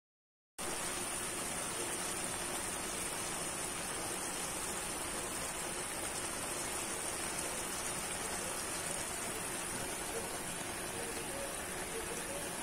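Kangkong (water spinach) sizzling in a hot wok as it is stir-fried, a steady hiss that starts suddenly about half a second in.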